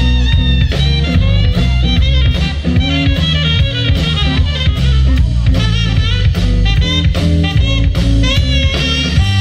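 Live blues band playing: a saxophone lead line over electric guitar, bass and a drum kit keeping a steady beat.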